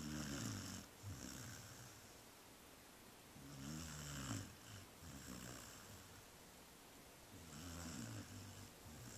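A pet snoring in its sleep: three slow, low snoring breaths about four seconds apart.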